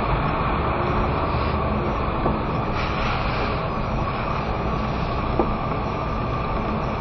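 Car driving on a wet mountain road, heard from inside the cabin: steady engine and tyre noise, with a light tick about five seconds in.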